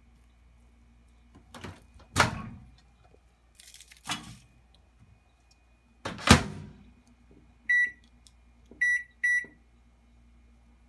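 Toshiba microwave oven: a few loud thunks, the heaviest about two seconds in and again about six seconds in, typical of its door being opened and shut. Then three short high beeps from its keypad as the buttons are pressed.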